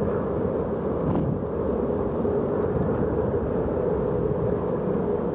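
Airbus A330-200's twin jet engines at takeoff power as the airliner climbs away: a steady low rumble.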